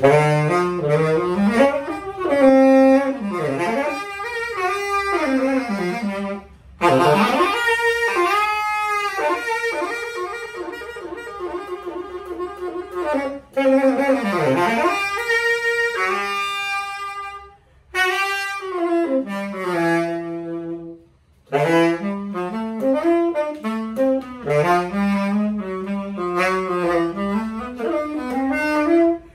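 Purple-logo Yamaha YTS-61 tenor saxophone played solo: melodic phrases with pitch scoops, a long held note with vibrato in the middle, and short breaths between phrases.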